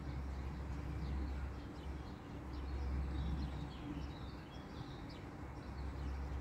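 Low, distant rumble of an Antonov An-26's turboprop engines and propellers, swelling and fading, with small birds chirping over it.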